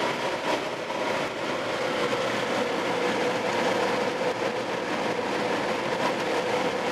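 Steady road and engine noise heard inside the cabin of a car driving at highway speed on paved road, with a constant low hum.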